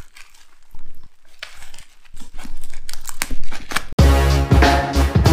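A mailing package being cut and torn open: scratchy tearing and crinkling in short strokes. About four seconds in, music starts suddenly and is much louder.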